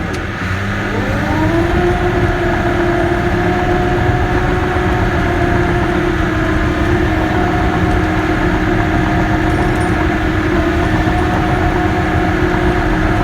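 Caterpillar D6K bulldozer's diesel engine running. Its pitch and level sag just at the start, climb back within about a second and a half, then hold steady.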